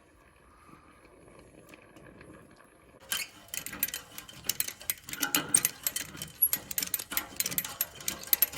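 Metal tools clicking and rattling against a rusted exhaust flange stud as it is worked free. A dense, uneven run of sharp metallic clicks starts about three seconds in, after a stretch of faint low noise.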